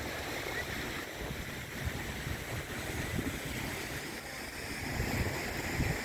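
Steady rush of sea water on a rocky shore, with wind buffeting the microphone in uneven low gusts.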